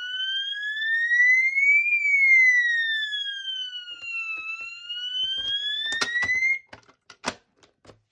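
Electronic fire alarm siren sounding a slow rising and falling wail, one sweep up and down taking about five seconds, rather than a horn tone. It cuts off about six and a half seconds in, followed by a few clicks and one sharp click.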